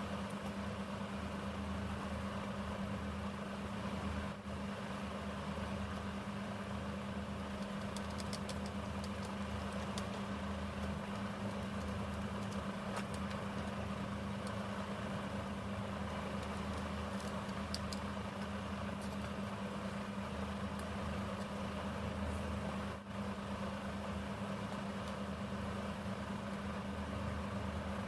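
Steady low hum, with a few faint clicks in the middle.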